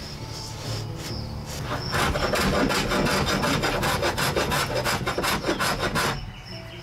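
Hand rasp filing wood in rapid back-and-forth strokes, fairing wooden boat framing down to shape. The strokes start about two seconds in and stop a second before the end.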